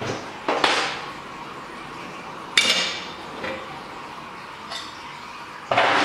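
Steel parts of a pad printing machine knocking and clinking together as they are handled and lifted off by hand: about half a dozen separate knocks, the loudest about two and a half seconds in with a short metallic ring.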